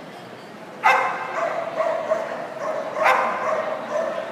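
Dog barking excitedly: a sudden loud bark about a second in, continued barking after it, and another loud bark about three seconds in.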